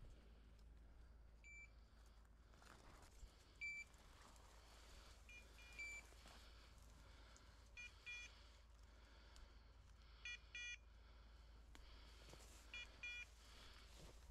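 Electronic beeper collars on hunting dogs sounding from the cover: short, high electronic beeps, single ones about every two seconds at first. From about five seconds in, pairs of beeps with a different, fuller tone come in and repeat about every two and a half seconds.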